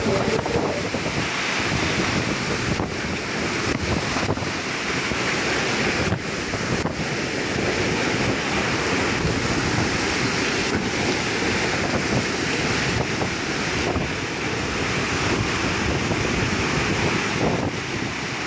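Strong summer-storm wind buffeting the microphone, a dense steady rush of noise with a few sharp knocks scattered through it.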